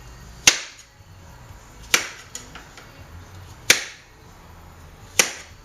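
Kitchen knife chopping apples and pears: four sharp knocks about a second and a half apart as the blade cuts through the fruit and strikes the board.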